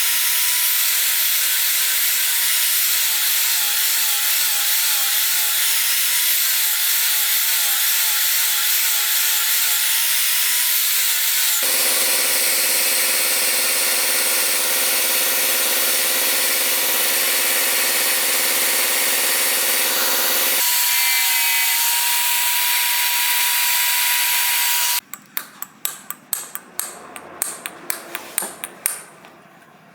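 A power tool runs steadily, its pitch shifting about 12 s in and again about 21 s in, then stops about 25 s in. A quick run of sharp taps and knocks on hard material follows.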